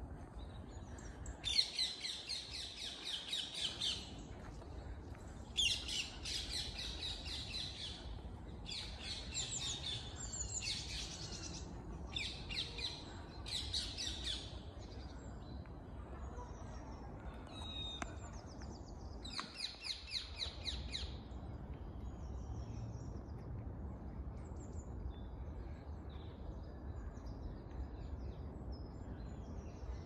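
A songbird singing about seven loud, rapid trilling phrases of one to two and a half seconds each, most of them in the first half, followed by fainter scattered bird calls, over a steady low rumble.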